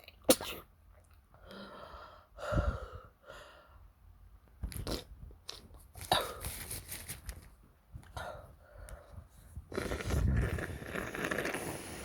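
A person sneezing and sniffling: a string of breathy nose-and-mouth bursts, the sharpest and loudest just after the start and a longer one near the end.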